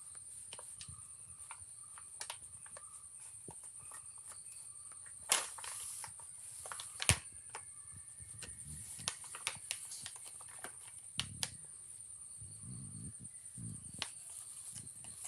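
Kittens pawing and chewing at a plastic cat food packet: scattered small clicks and crinkles, with two louder clicks about five and seven seconds in and some soft rustling later on. A steady high-pitched whine runs underneath.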